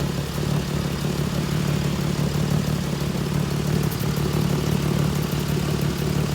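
2007 Pontiac G6 engine idling steadily with a low, even hum. The exhaust is leaking through cracks near the donut gasket, which the owner takes for the cause of the car's noise.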